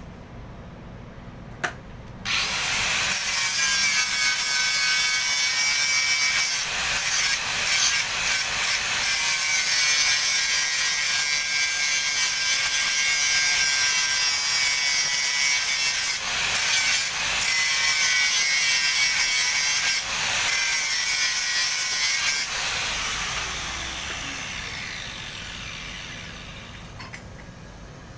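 Angle grinder working a steel plate: it starts abruptly about two seconds in and runs with a high whine and hiss, dipping briefly a few times as it eases off the metal. Near the end it is switched off and its whine falls as the disc spins down.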